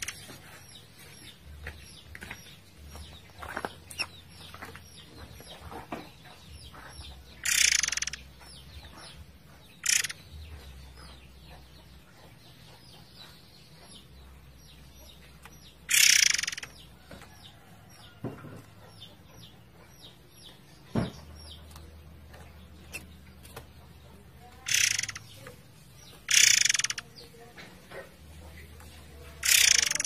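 Murai air songbird singing in short loud bursts a few seconds apart, with faint chirps and clicks between them, over a steady background of flowing water.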